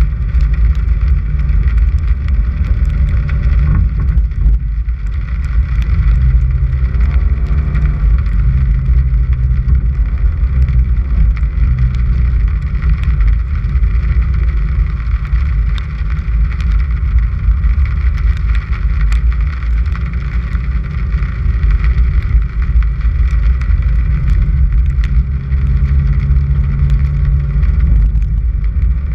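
Car driving slowly up a gravel road: a steady low rumble of engine and tyres on the gravel, with engine tones that rise and fall a little.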